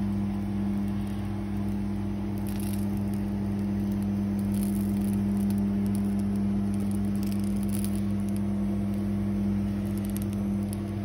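Capsicum strips sizzling faintly with scattered crackles in a ridged grill pan, under a louder steady low hum.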